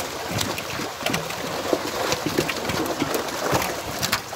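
A crowded mass of fish thrashing in shallow water inside a drawn-in seine net, a steady churning splash with many sharp irregular slaps.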